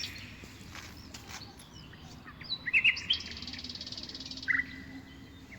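Small birds singing: a few quick chirps, then a rapid buzzy trill lasting about a second and a half, and one short call, over a faint steady low hum.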